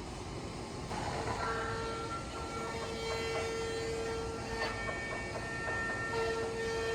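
HT-1830x2RBS CNC router spindle whining at a steady high pitch as it cuts, starting about a second in and dropping out briefly a couple of times, over a noisy machine bed with a few short knocks.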